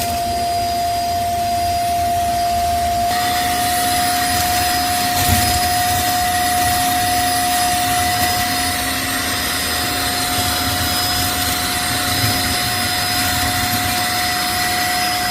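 linenix ash vacuum's motor running steadily with a whine and a rush of air as it sucks ash out of a fireplace. About three seconds in, the whine steps up slightly in pitch and the airflow hiss grows louder.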